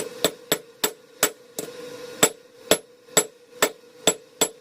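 Hand hammer striking hot steel on an anvil while forging a rebar axe: about a dozen sharp, ringing blows, two to three a second, with a short pause about halfway. A steady hum runs underneath.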